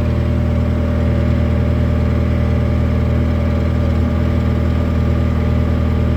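Case SR175 skid steer loader's engine running steadily at idle.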